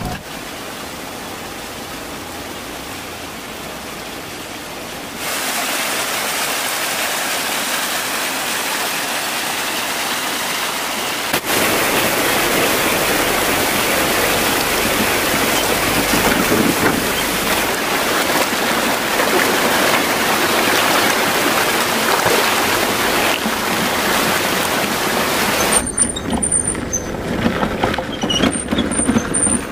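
A steady rush of water, getting louder in steps about 5 and 11 seconds in. About 26 seconds in it gives way to a thinner noise with scattered sharp ticks.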